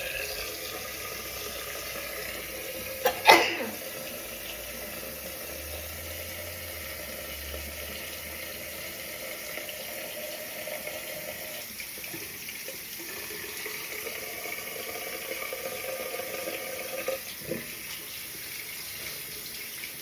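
Water running steadily from a tap into a sink, with one short, sharp burst about three seconds in.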